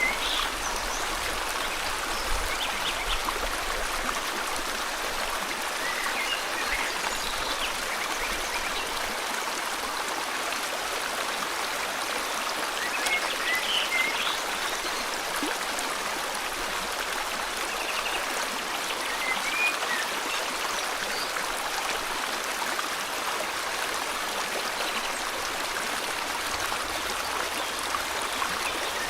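River water flowing steadily, with short bird chirps scattered over it now and then.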